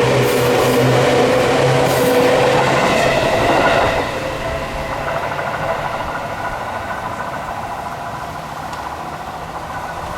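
Electric commuter train of the Seibu Tamako Line passing over a level crossing, loud for about four seconds, then dropping away and fading as it moves off.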